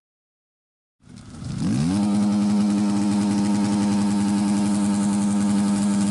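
Motorcycle engine fading in from silence, rising in pitch for about a second as it revs up, then holding a steady even note.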